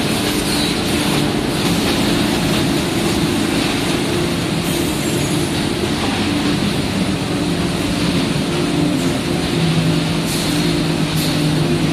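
Steady machinery noise of a corrugated cardboard production line running: conveyors and stacker carrying cut cardboard sheets, a constant low hum under an even hiss, with a few faint clicks near the end.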